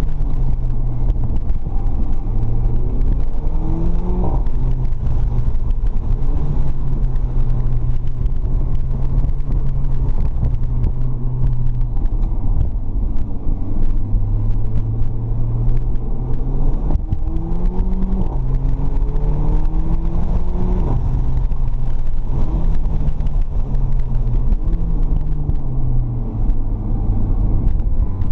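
Mercedes CLA45 AMG's turbocharged 2.0-litre four-cylinder engine heard from inside the cabin, being driven hard. Its pitch rises under acceleration and drops back several times, over a steady rumble of road and wind noise.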